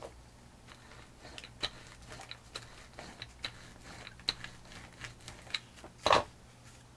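A paint sponge dabbed again and again through a plastic stencil onto a book page: a string of soft, short taps, two or three a second, with one louder knock about six seconds in.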